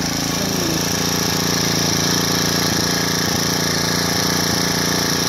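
Checkmate CKT BC45 53 cc four-stroke petrol brush cutter engine running steadily at an even speed.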